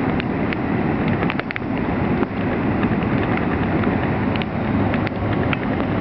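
Steady rush of fast-flowing floodwater in a swollen creek, with scattered small ticks of rain.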